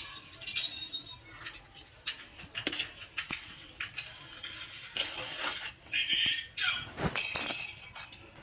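Kitchen handling sounds: a spoon scraping and clinking on a plate as cabbage-and-mayonnaise filling is spread onto a flatbread, with rustling. Irregular clinks and scrapes, loudest in the second half.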